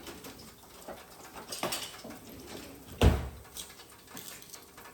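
Kitchen handling sounds: a light knock about a second and a half in, then a louder thump about three seconds in.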